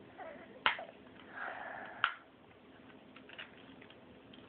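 Plastic parts of a Power Rangers Megazord toy being handled and snapped together: two sharp clicks about a second and a half apart, then a few faint ticks.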